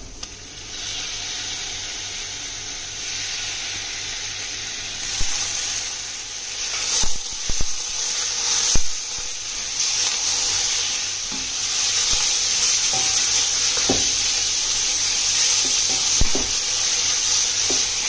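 Raw chicken strips sizzling in hot oil in a stainless steel wok. The hiss starts about half a second in and grows louder, while a silicone spatula stirring the pieces knocks and scrapes against the pan now and then.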